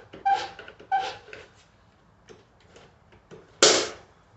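Hand-tool handling noise as a drill bit is worked into a T-handle that is not gripping it tightly: three short squeaks near the start, a few light knocks, and then a brief loud metallic scrape about three and a half seconds in.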